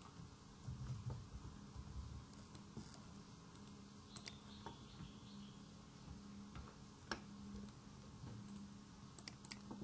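Faint, scattered computer mouse clicks, a few single clicks with the clearest about seven seconds in, over a faint low steady hum.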